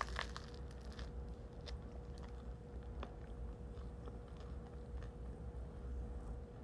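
Someone bites into a piece of crusty bread with a short crunch at the start, then chews with a few faint crackles, over a steady low hum.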